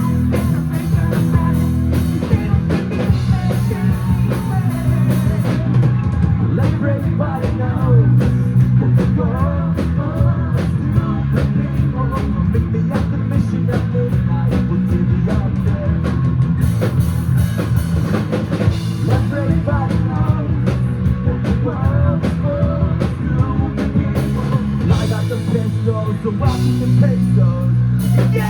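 Rock band playing live: a drum kit keeping a steady beat under electric guitars and bass.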